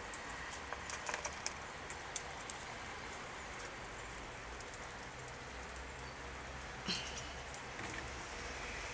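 Faint, irregular light clicks and taps over the first couple of seconds as a Eurasian red squirrel picks a nut off a windowsill and nibbles it. One louder knock comes about seven seconds in, over a steady faint outdoor hiss.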